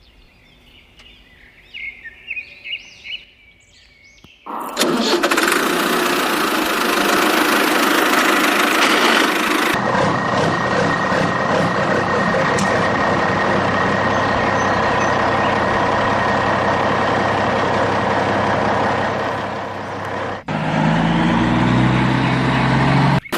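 Diesel engine of heavy machinery running loudly after a few quiet seconds with faint chirps; near the end an engine note rises in pitch as it revs.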